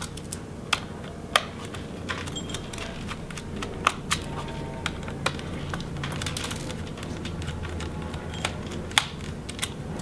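Irregular light clicks and small metallic clinks of a small Phillips screwdriver taking out the screws that hold the hard-drive caddy in an Acer Aspire 5 laptop's plastic bottom case.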